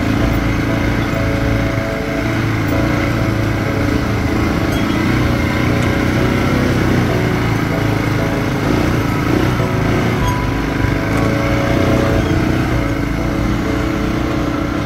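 Off-road buggy's small petrol engine running at a steady speed as it drives along a rough dirt trail.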